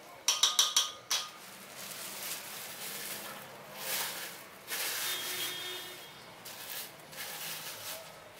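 Several quick taps of a silicone spatula on a stainless steel mixing bowl, the metal ringing, in the first second. Then clear plastic crinkles and rustles in bursts as it is stretched over the bowl.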